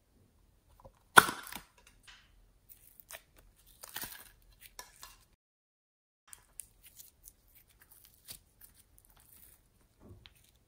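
A sharp click about a second in, then pink floam slime squeezed by hand, its foam beads crackling and popping in scattered small clicks.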